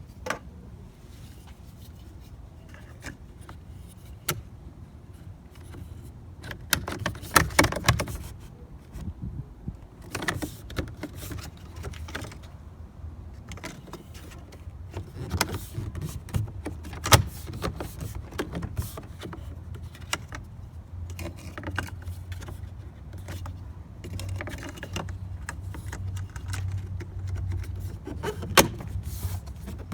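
Irregular clicks, knocks and light rattles of hands and tools working on a pickup truck during a mirror and wiring installation, over a low steady hum that gets stronger about two-thirds of the way through.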